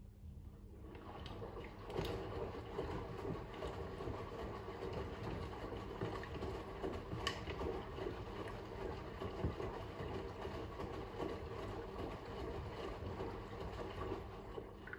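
Fisher & Paykel WM1480P front-loading washing machine tumbling the load in the rinse water: water sloshing and wet clothes splashing in the turning drum over a steady motor hum. It starts about a second in and stops just before the end.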